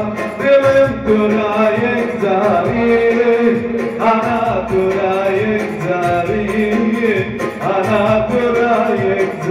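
A man sings into a handheld microphone, with instrumental backing under him: a steady held tone and an even beat.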